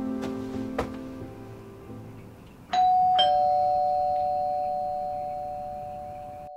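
Background music fades out. Then a doorbell chimes a two-note ding-dong, a higher note followed about half a second later by a lower one, both ringing on and slowly dying away.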